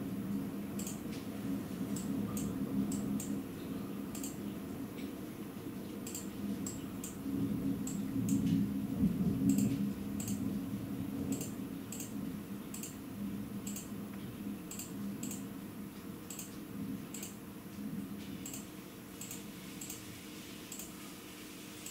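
Heavy rain: irregular clicks of raindrops striking a hard surface close to the microphone, several a second, over a low rumbling rush that swells about eight seconds in and then slowly fades.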